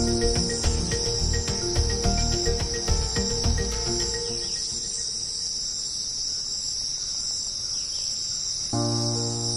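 Insects trilling steadily at a high pitch, over background music that fades out about halfway through and comes back near the end.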